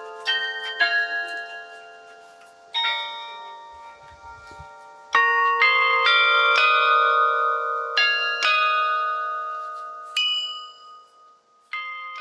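A set of tuned church tower bells playing a slow melody: about a dozen notes of different pitches, each struck and left ringing so that the notes overlap, with a quick run of four notes in the middle.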